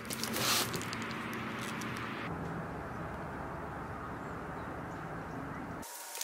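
Steady outdoor background noise with a low, even hum, opening with a brief rustle of handling in the first half-second.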